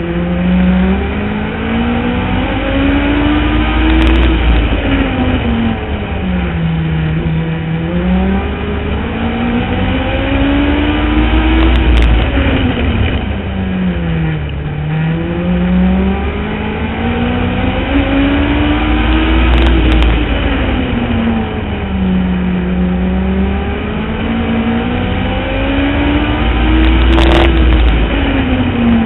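Onboard sound of a Legend car's Yamaha four-cylinder motorcycle engine racing laps: the pitch climbs for about four seconds down each straight, then falls as the driver lifts for the turns. This repeats about every seven and a half seconds, four times, with a brief sharp click at the top of each climb.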